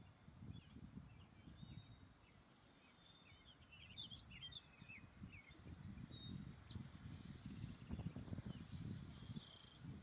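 Wind gusting against the microphone as a fluctuating low rumble that grows stronger in the second half, with faint, short bird chirps and calls, mostly in the first few seconds.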